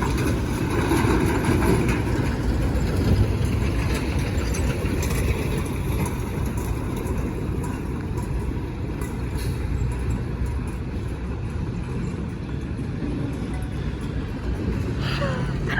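Steady low rumble of motor vehicles running.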